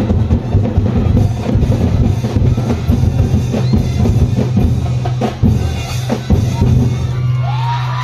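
Loud drum-led dance music with rapid bass drum and snare beats and other percussion. Near the end the drumming stops, leaving a held low bass note, and voices start shouting.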